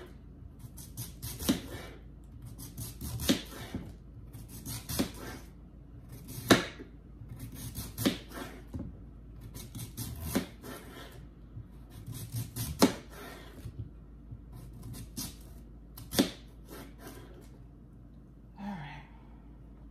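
Kitchen knife slicing through a large raw sweet potato and knocking down onto a plastic cutting board: a sharp chop with a short scrape about every one and a half to two seconds, as the potato is cut into slabs for fries.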